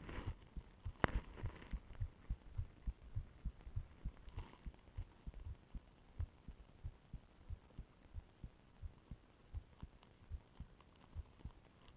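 Human heartbeat heard through a stethoscope: a steady, regular run of low thumps. A sharp click about a second in stands out above the beats.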